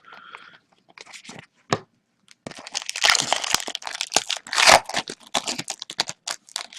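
Trading card pack wrappers being torn open and crinkled by hand: an irregular crackling and tearing, sparse at first and busiest from about halfway through.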